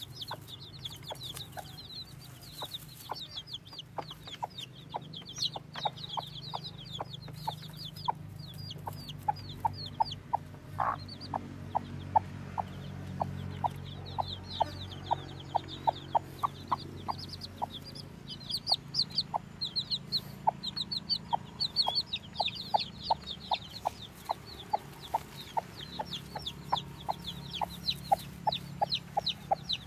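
Broody hen clucking on her nest: short sharp clucks repeating about twice a second, more steadily after the first few seconds. Runs of quick, high, thin chirps sound over them.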